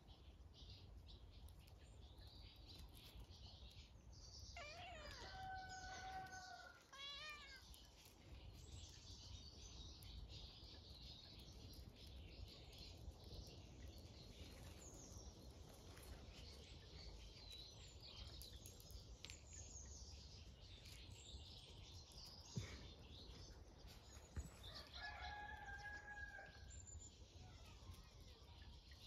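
A rooster crowing faintly twice, about five seconds in and again near the end, each call rising to a held note. Small birds chirp in the background, and there are a couple of soft knocks.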